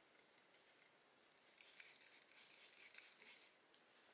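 Faint crinkling and crackling of wet clear paint protection film being lifted and handled over a car side mirror, strongest from about one and a half to three and a half seconds in.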